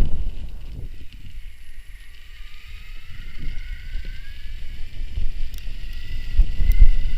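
Electric mountain bike motor whining, rising steadily in pitch as the bike picks up speed. Wind buffets the microphone, strongest at the start and again near the end.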